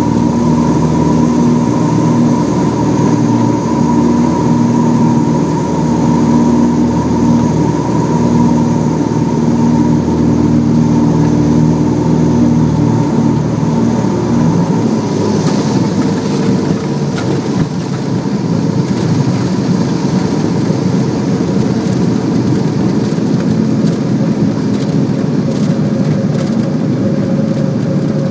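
Cessna 404's twin piston engines and propellers heard from the cockpit: a steady droning hum on final approach. About halfway through the hum fades as power comes off at touchdown, giving way to a rougher rumble of the aircraft rolling down the runway with scattered light knocks.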